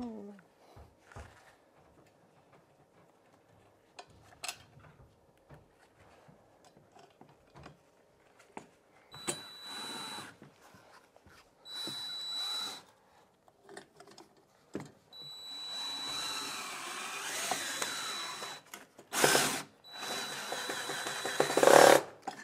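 Cordless drill with a right-angle head driving wood screws at an angle into the pine under the floor to secure a floor box. It comes in several runs of one to three seconds starting about nine seconds in, with the loudest runs near the end. Small handling clicks come between the runs.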